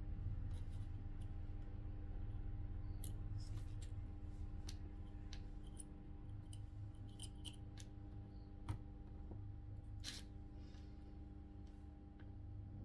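Soldering work on the power adapter's circuit board as the optocoupler's pins are resoldered: scattered light clicks and ticks of the iron and tools on the board, with one sharper click about nine seconds in, over a steady electrical hum.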